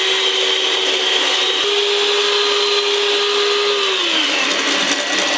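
Two electric mixers running at once: a KitchenAid stand mixer whipping egg whites on high speed and a handheld mixer beating egg yolks with sugar, giving a steady motor whine. About four seconds in, one motor winds down in pitch while the other keeps running.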